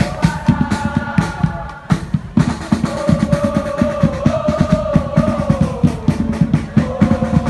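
A drum troupe of bass and snare drums beats a fast, dense rhythm, with a held, slowly rising and falling melody line over it. The drumming breaks off briefly about two seconds in, then comes back.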